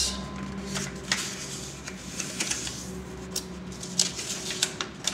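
A sheet of paper being folded and creased by hand: irregular crinkles and sharp rustles, about one or two a second, over a faint steady low hum.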